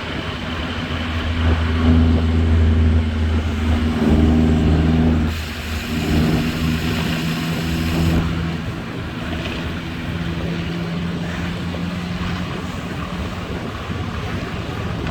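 A motor vehicle's engine running close by with a steady hum, over wind rushing across the microphone of a moving bicycle. The hum is loudest in the first few seconds, then fades out a couple of seconds before the end, and a brighter hiss swells up in the middle.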